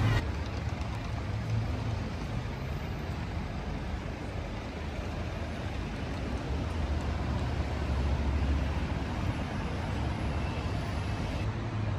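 City street traffic: a steady low rumble of passing vehicles, a little louder about eight seconds in.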